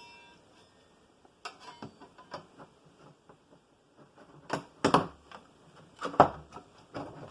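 Light clicks and taps from handling the 2009 Mac Mini's plastic case and prying tool, as the casing is worked apart. A few sharper knocks come around five and six seconds in.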